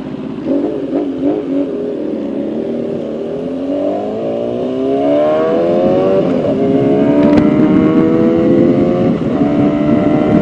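Motorcycle engine accelerating through the gears: the pitch climbs in each gear and drops at two upshifts, the second one near the end, over a steady rush of wind and road noise.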